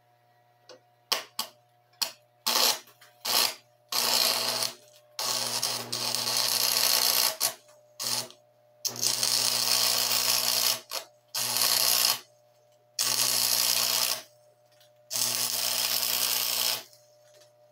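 AC stick welder arc welding with 3/32 6011 rod at about 60 amps. The arc crackles: a few short strikes at first, then about seven runs of one to two seconds each, broken off and struck again, over a steady low hum. It is a butter pass filling a hole in an exhaust manifold.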